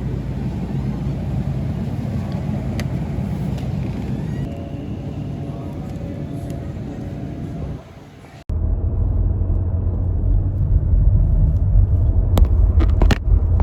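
Steady low rumble of a car being driven. It drops away briefly about eight seconds in, then comes back louder, with a few sharp clicks near the end.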